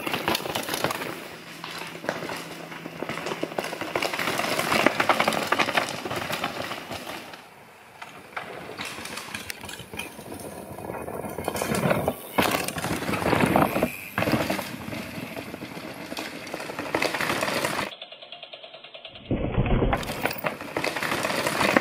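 Downhill mountain bike riding fast over loose rock and stones: tyres crunching and clattering on the rocks, with the bike's chain and frame rattling. The sound breaks off abruptly and changes character near the end.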